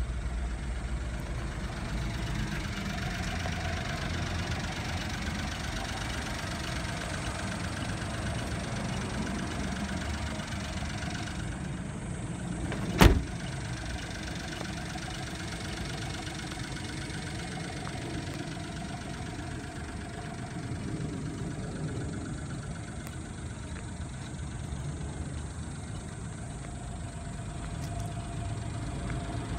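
Honda Acty mini truck's small three-cylinder engine idling steadily. About halfway through there is one sharp, loud bang, the cab door shutting.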